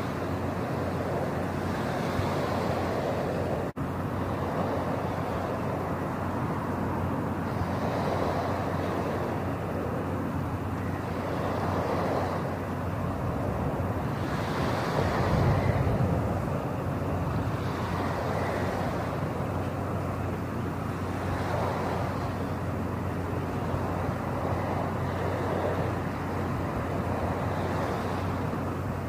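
Steady rushing noise with a low hum underneath, swelling and easing every few seconds, with a brief dropout about four seconds in.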